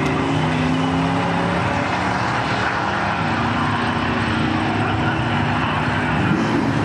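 1968 Plymouth Valiant's engine running steadily as the car rolls slowly toward the camera, its note shifting a little about three seconds in, over a constant wash of track noise.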